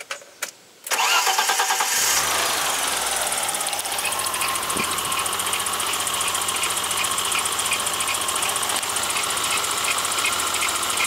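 A few clicks, then a BMW M20 straight-six is cranked on the starter and catches about two seconds in, settling into a rough idle with a repeating pulse. The roughness is from a vacuum leak at a missing valve cover stud.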